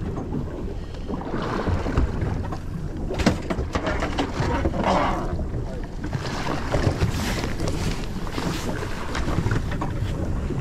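Wind buffeting the microphone on a boat at sea over a steady low rumble, with water washing against the hull. A few brief knocks and rustles come from hands working close to the microphone.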